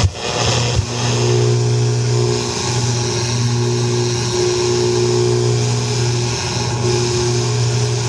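Radio tones received on a homebuilt shortwave crystal radio set and played through loudspeakers: a steady low hum joined about a second in by higher tones that drop out and come back several times. The uploader takes these signals for HAARP transmissions.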